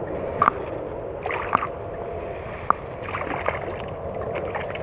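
Small stream running, with a few short splashes from a hooked brown trout thrashing near the surface as it is played on the line.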